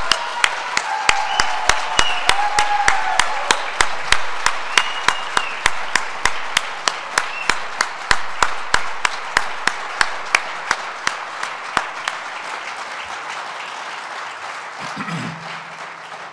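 Audience applauding, with loud, evenly paced claps about three a second from one person close to the microphone. Those claps stop about three-quarters of the way through, and the applause dies away over the last few seconds.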